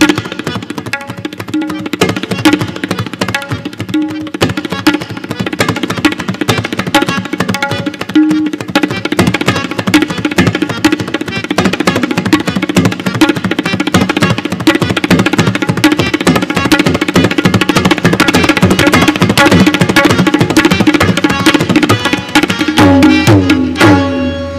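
Tabla solo: a fast rela of dayan and bayan strokes in the rhythm of a galloping horse. The strokes grow denser from about a third of the way in, slide in pitch near the end, and stop suddenly.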